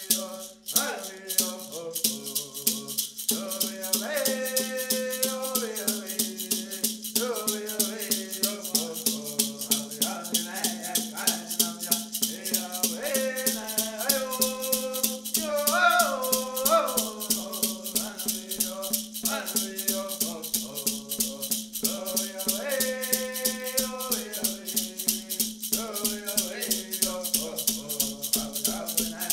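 Voices singing a Women's Dance song in repeated phrases over a steady, fast beat of a shaken rattle, with a steady low hum underneath.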